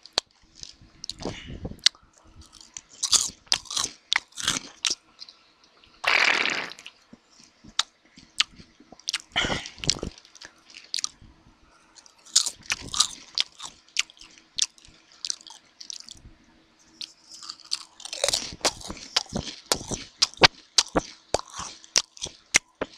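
Potato chips being crunched and chewed close to the microphone: sharp, irregular crunches and mouth noises, with one longer breathy rush about six seconds in.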